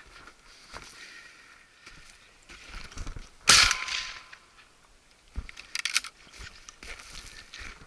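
A single shotgun shot about three and a half seconds in, sharp and loud with a short tail, fired at thrushes.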